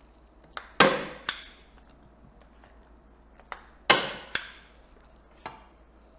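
Hand staple gun firing twice, about three seconds apart, driving staples through wet watercolour paper into a wooden stretcher frame. Each shot is a sharp snap, with lighter clicks just before and about half a second after.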